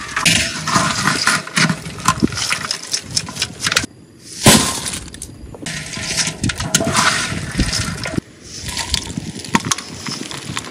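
Crisp fried banana chips and chicken pieces rattling and crackling as they are tossed and scooped in a large metal wok, with scraping and clinks of a metal skimmer against the pan. The sound cuts off abruptly twice, and one sharp clank about four and a half seconds in is the loudest.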